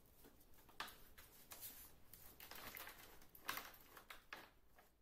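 Faint, irregular crackles and clicks of a plastic water bottle pressed and rolled under a socked foot on a tiled floor, the loudest about three and a half seconds in.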